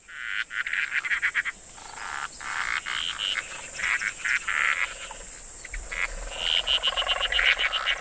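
A chorus of breeding frogs calling, several overlapping at once. The calls are rapid trains of clicking, rattling pulses, with a few short higher notes.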